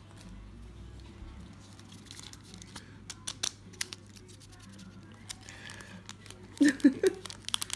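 Foil wrapper of a Pokémon TCG booster pack crinkling and tearing as it is pulled open by hand, in scattered sharp crackles that grow busier in the second half.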